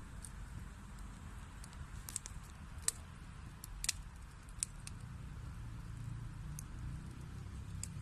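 Wood fire burning in a fireplace: a steady low rumble of flame with scattered sharp pops and crackles from the burning wood, two of them louder a little before the middle.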